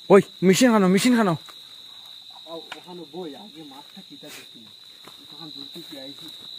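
Crickets chirping in one steady high-pitched tone. A person's voice calls out loudly for about a second near the start, and quieter voices talk after.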